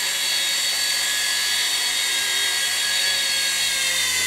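Small electric motors and stacked twin rotors of a Sky Force Stunt Copter toy RC helicopter running in hover flight: a steady high-pitched whine with a buzz from the rotors.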